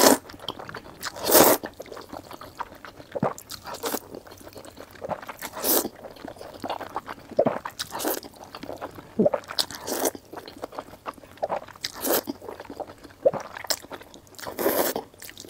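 Slurping of Nanchang mixed rice noodles in oily sauce, about half a dozen loud slurps roughly two seconds apart, with wet chewing and crunching between them.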